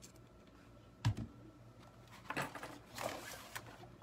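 A low knock about a second in, then soft scraping as a plastic squeegee spreads chalk paste across a silkscreen transfer on a chalkboard.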